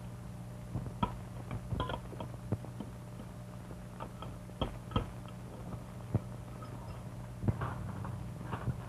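Dishes and cutlery clinking and knocking as a meal table is cleared: about eight scattered, irregular clatters over the steady low hum of an old film soundtrack.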